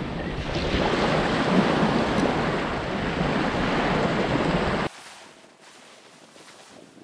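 Wind buffeting the microphone over surf washing on the shore, a loud steady rush that cuts off suddenly about five seconds in to a much quieter background.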